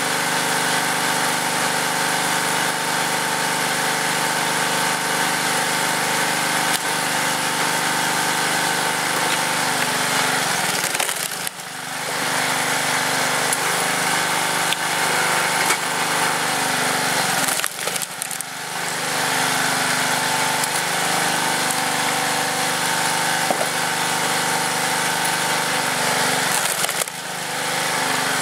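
Tecumseh engine on a hydraulic log splitter running steadily. Its note sags three times as the ram pushes logs through the wedge, about a third of the way in, just past halfway and near the end, with wood cracking and splitting.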